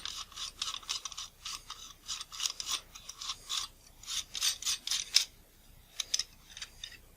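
Rubber lens tool rubbing in quick, repeated short strokes against a lens retaining ring, working up friction to unscrew it; the strokes thin out near the end.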